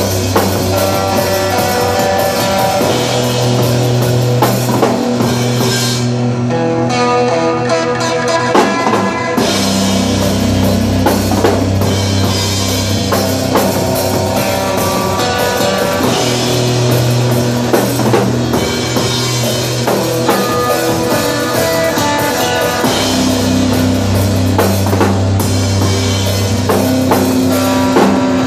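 A rock band playing loud live: a drum kit with cymbals, and electric guitar over sustained low bass notes. The high cymbal sound drops out for about three seconds, around six seconds in.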